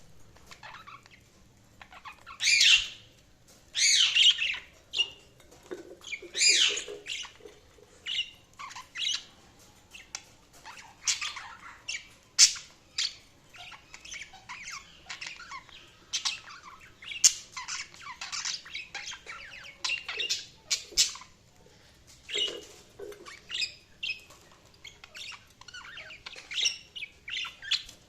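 Budgerigars chirping and squawking: a run of short, sharp, high calls, with a few louder harsh squawks in the first seven seconds.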